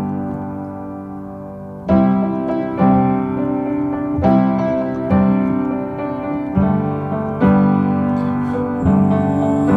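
Background music: a piano playing chords, a new note or chord struck about every second.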